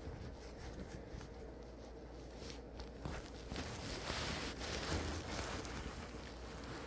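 Soft rustling and rubbing of fur and blanket close to a phone's microphone, with small scattered clicks; the rustling grows louder for about two seconds midway.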